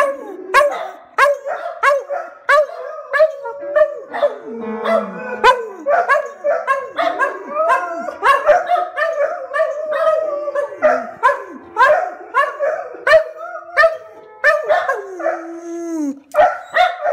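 Dogs barking and howling in quick repeated bursts while pawing the keys of an upright piano, which sounds scattered held notes. Near the end one long howl slides down in pitch.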